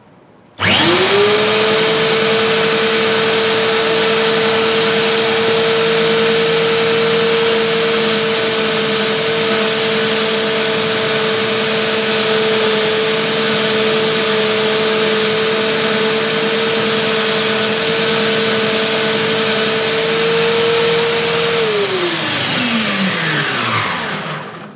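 Handheld electric belt sander, clamped upside down in a vise as a bench sander, is switched on about half a second in and runs loud with a steady whine while a wooden mallet handle is pressed against the sanding belt. Near the end it is switched off and spins down, its whine falling in pitch as it dies away.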